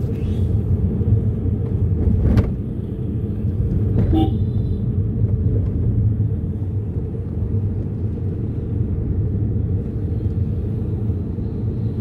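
Steady road and engine rumble from a moving car, heard inside the cabin. A sharp knock comes about two seconds in, and a short high tone about four seconds in.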